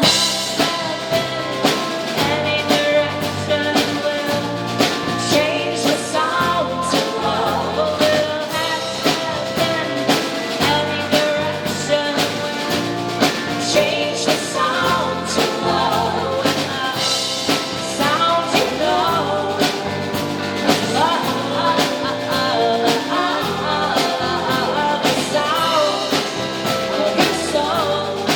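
Live band playing an instrumental passage: a drum kit keeps a steady beat under bass notes and a lead melody line with bending, sliding notes.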